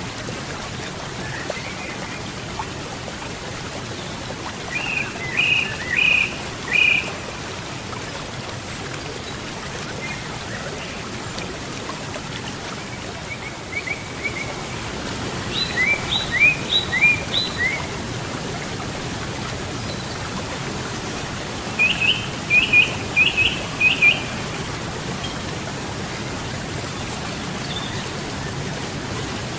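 Steady rush of flowing river water, with a songbird singing three short phrases of four or five quick notes each, spread through the stretch.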